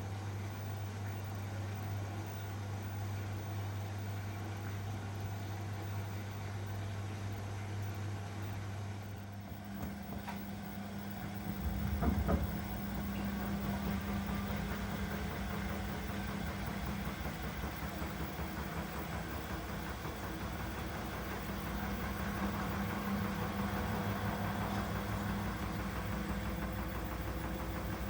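Elin washing machine running: a steady low hum that shifts about ten seconds in, with a brief knock a couple of seconds later, then settles into a steady hum at a higher pitch.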